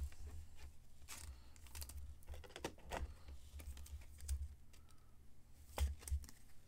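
Trading cards being handled and set down on a table: light, irregular clicks and taps, over a faint steady low hum.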